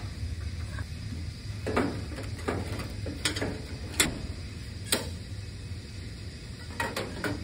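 Irregular clicks and light knocks of wires and plastic wire nuts being handled and tucked into a metal fluorescent light fixture, about seven in all, over a steady low hum.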